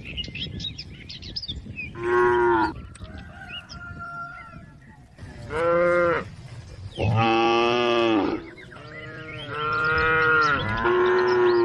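Cow mooing repeatedly, about five loud drawn-out moos a few seconds apart. The last one runs on past the end.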